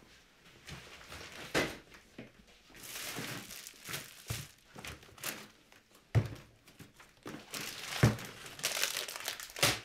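Plastic bag and packaging crinkling and rustling as things are handled, broken by a few sharp knocks of objects being set down, the loudest about eight seconds in.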